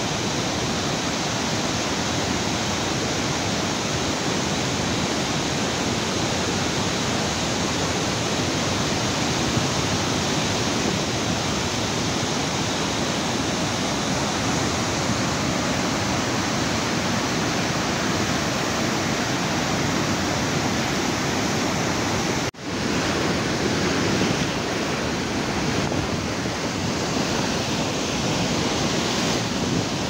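Waterfall in flood and its torrent below, a steady loud rush of water that cuts out for an instant about three-quarters of the way through.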